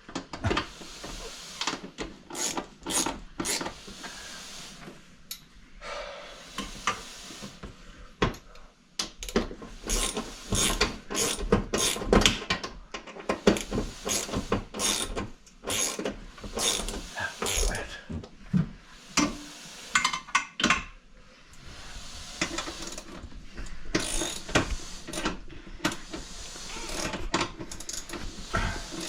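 Screws being tightened by hand to fix a TV wall mount into the wall studs: runs of irregular clicks and knocks, with short pauses between them.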